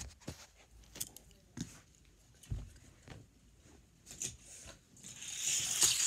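Handling noise from a child moving about on carpet among plastic Hot Wheels track pieces: scattered light knocks and bumps, then a rustle that builds near the end and stops with a thump.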